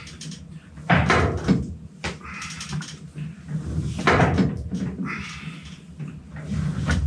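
Car being pushed by hand as its front tyre climbs onto a wooden board: a few dull thumps and knocks, about a second in, around four seconds and again near the end, with scraping and creaking between them.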